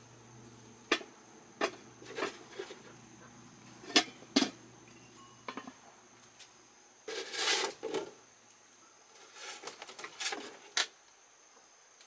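Irregular sharp knocks and clatters of objects being handled, over a dozen strikes, with a longer clattering stretch a little past the middle and another near the end.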